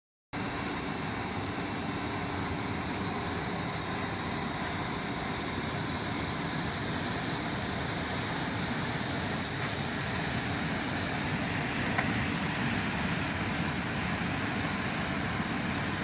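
Industrial bubble-type leafy vegetable washing machine running: an air blower drives bubbles through the water tank, giving a steady churning hiss of frothing water over the blower's hum. A single short click sounds about twelve seconds in.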